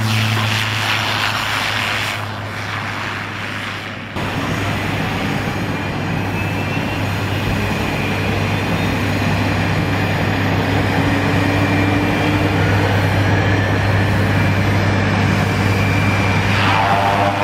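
Cessna Grand Caravan's single turboprop engine running at taxi power: a steady low propeller drone with a faint high turbine whine above it. The level dips for a couple of seconds and comes back abruptly about four seconds in.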